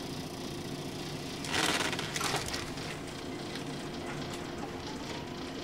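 Running sound inside a JR 115 series 1000 electric train: a steady rumble of wheels and MT54 traction motors, with a short burst of hissing noise about a second and a half in.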